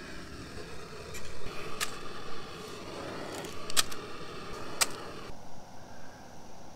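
Backpacking gas-canister stove burning with a steady hiss under a metal mug of water. The mug and its lid clink sharply three times as the lid is set on. The hiss cuts off suddenly about five seconds in.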